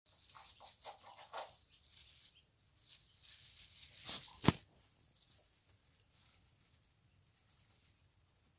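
Soft rustling and crackling of fresh-cut grass as baby rabbits shuffle through it, with scattered small clicks and one sharp knock about four and a half seconds in.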